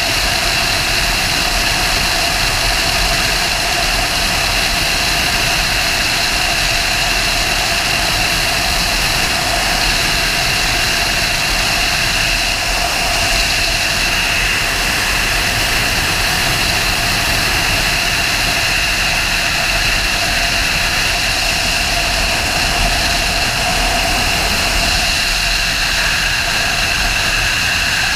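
Sportbike riding at a steady cruise: the engine's constant note under heavy wind rush at speed, with a steady whine on top and no gear changes or revving.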